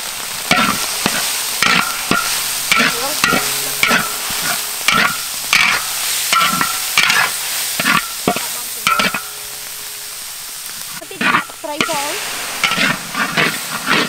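Metal spatula scraping and stirring spice paste and chili frying in oil in a large wok, about two strokes a second, each with a short metallic ring, over a steady sizzle. The strokes stop for a second or two about ten seconds in, then start again.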